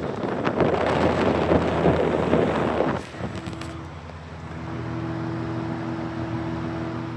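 Westinghouse 8-inch Riviera electric fan running on high. For the first three seconds its airstream rushes loudly over the microphone like wind. After that it settles to a steady motor hum with a low whir of the blades.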